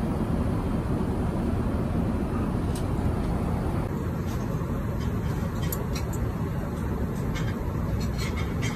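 Steady low rumble of an Airbus A350 cabin in flight, airflow and engine noise. A few faint light clicks come through in the second half.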